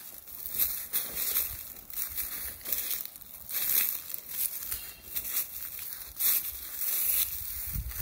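Footsteps crunching through dry fallen leaves and dry grass, about two steps a second.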